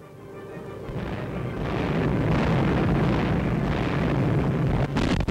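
Anti-aircraft fire: a dense rumble of flak explosions that swells up over the first two seconds and stays loud.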